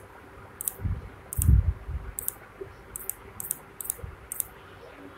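About seven light, sharp clicks spread irregularly, as a phone number is keyed in, with two soft low thumps about one and one-and-a-half seconds in.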